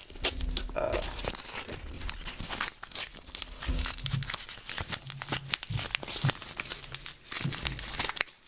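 Yellow padded mailer crinkling and crackling as it is handled and torn open by hand, an irregular run of sharp crackles with a few dull knocks.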